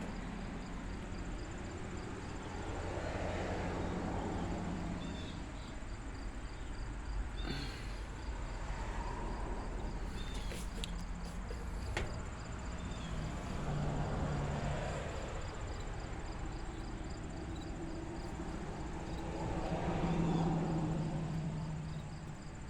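Lenox central air conditioner running with a steady low hum, swelling louder a few times. Insects chirp in a steady high pulse behind it.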